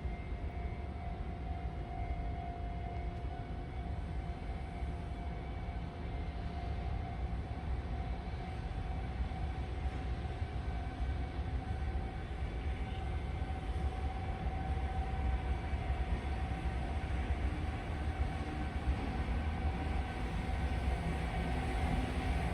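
Diesel-hauled freight train running with a steady low engine drone and a constant hum-like tone, growing gradually louder as it draws nearer.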